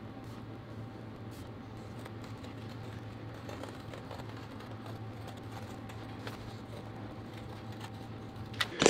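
Scissors snipping faintly and only now and then through PVC tarpaulin, over a steady low hum.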